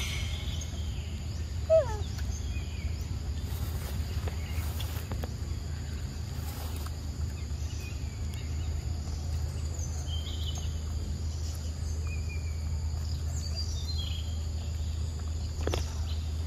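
Outdoor ambience: a steady low hum and a steady high buzz, with scattered short bird chirps. About two seconds in comes one loud falling whistle-like call, and near the end there are a few sharp clicks.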